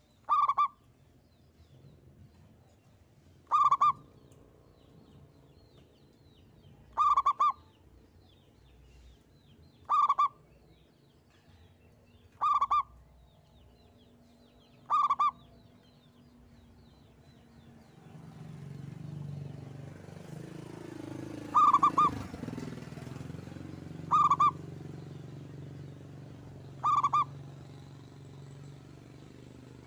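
A zebra dove (perkutut) singing its short, quick cooing phrase nine times, about every three seconds, with a longer pause after the sixth. A low rumble swells up about two thirds of the way in and lingers under the last calls.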